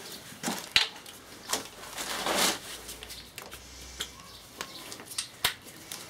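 Hand tools being handled, with scattered sharp metal clicks and clinks as a socket is picked out and fitted to the gearbox drain plug, and a longer rustle about two seconds in.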